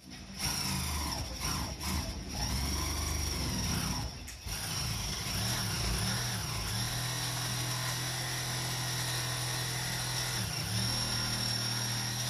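Corded jigsaw running and cutting through a wooden board, with short breaks in the cut about two and four and a half seconds in.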